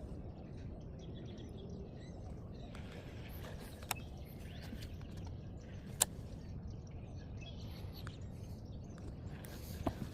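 Outdoor lake ambience: faint bird chirps over a steady low rumble, broken by a few sharp clicks, the loudest about six seconds in.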